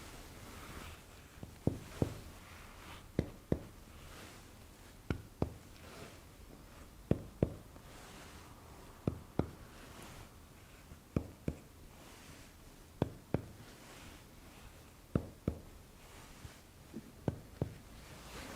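Chest percussion: fingers tapping on the chest wall in quick double taps, one pair about every two seconds, as one spot after another is tapped in turn.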